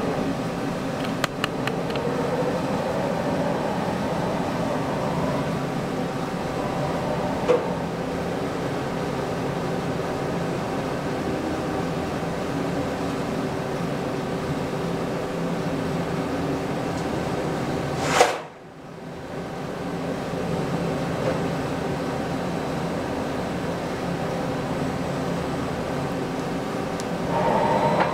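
Okuma Howa 2SP-V55 vertical CNC lathe running: a steady machine hum made of several tones, with a whine that rises and falls in pitch near the start and again near the end as the tool turret head travels on its ram. A few light clicks come early, and a single sharp knock comes about two-thirds of the way through.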